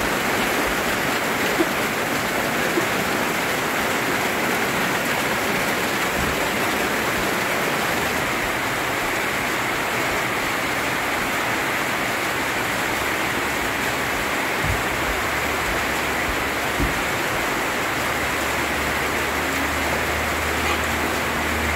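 Heavy rain falling steadily, a dense, even hiss with a few faint knocks.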